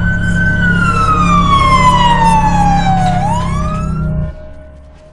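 Siren sound effect in a crime-report title sting. One wail falls slowly in pitch for about three seconds, then swings back up, over a steady low rumble. Both fade out about four seconds in.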